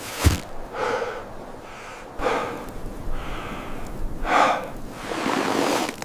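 Heavy breathing: a series of loud, rasping breaths about one a second, the last one drawn out longer. There is one sharp thump or crunch just after the start.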